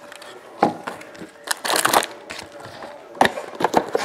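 Cardboard trading-card hobby box being pried open by hand: a sharp knock under a second in, a longer rasping scrape of cardboard about a second and a half in, then a run of short knocks and taps near the end.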